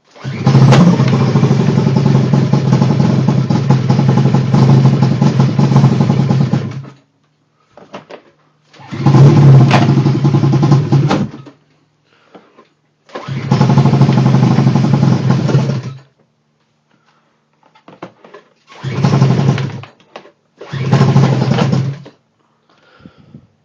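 Engine running roughly in five separate bursts, each starting and cutting off suddenly: a long one of about six and a half seconds, then two of two to three seconds, then two short ones of about a second and a half near the end.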